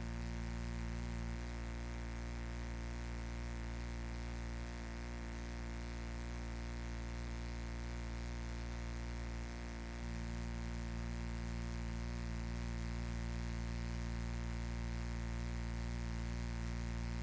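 Steady electrical hum and buzz from the sound system, a low drone with a hiss over it.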